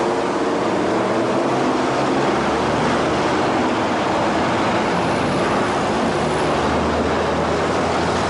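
Busy city street traffic: steady noise of passing cars and their engines, with a low engine drone underneath.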